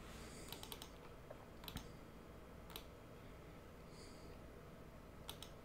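Faint computer keyboard and mouse clicks over quiet room tone: a quick run of keystrokes about half a second in, a few scattered single clicks, and two quick clicks near the end.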